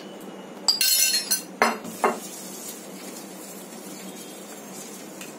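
Metal spoon clinking and knocking against a stainless steel bowl as flour is stirred into milk for batter: a quick run of clinks about a second in, then two single knocks.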